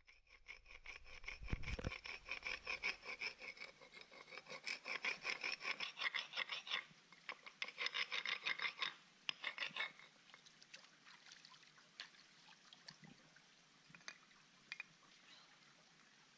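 A flat stone being ground back and forth against a larger rock in rapid, even strokes, with a short pause about seven seconds in. The grinding stops about ten seconds in, leaving only a few faint clicks of stone on stone.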